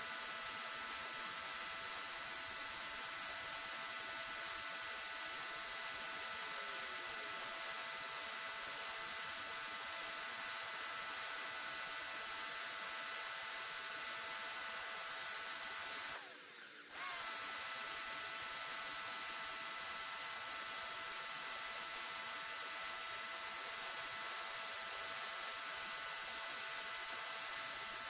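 Electric pressure washer running, its motor giving a steady whine over the hiss of the water spray. The sound briefly cuts out about two-thirds of the way through and comes straight back.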